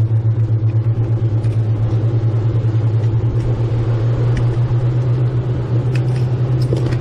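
Boat engine running steadily under way: a deep, even hum that pulses several times a second, with a steady hiss above it.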